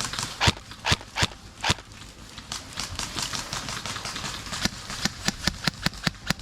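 Airsoft guns firing: a few single shots in the first two seconds, then a quick string of shots, about five a second, near the end.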